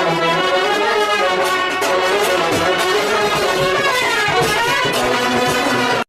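Brass-led music, with trumpet- and trombone-like parts, played at a steady loud level and cut off abruptly near the end.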